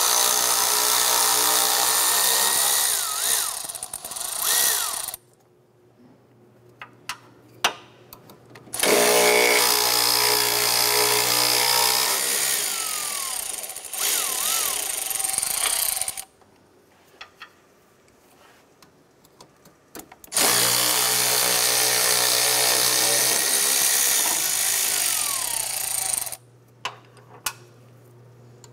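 A handheld power tool's motor runs in three long bursts of several seconds each, backing out bolts, with a few light clicks from handling in between.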